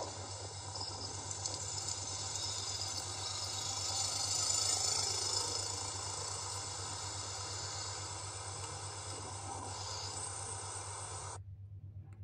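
Steady hiss over a low engine hum heard from inside a moving vehicle, likely rain and road noise, cutting off abruptly near the end.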